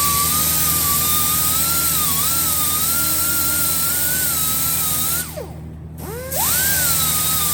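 A handheld power grinder running at high speed, its whine wavering slightly as it works. About five seconds in it winds down and stops, then spins back up about a second later and keeps running.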